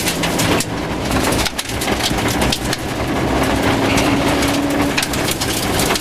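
Rover 214 rally car driven hard on a gravel stage, heard from inside the car: the engine runs under load, holding a steady note for a second or two near the middle, while gravel and stones rattle and knock against the underside in a constant clatter.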